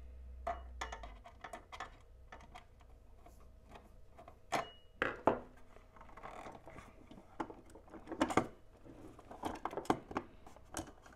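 Scattered light clicks and taps of a Lionel U36C's plastic locomotive shell and small parts being handled as the shell is worked off the chassis.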